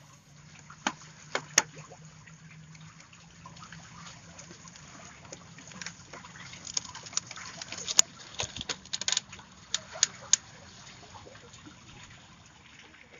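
Water sloshing and trickling, with scattered sharp clicks and knocks that come in a few quick clusters, the busiest between about six and ten and a half seconds in.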